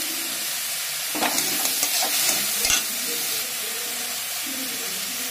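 Finely chopped cabbage, carrot and onion sizzling steadily in hot oil in a steel kadhai, with a steel spatula scraping and clinking against the pan as the vegetables are stirred, for a couple of seconds about a second in.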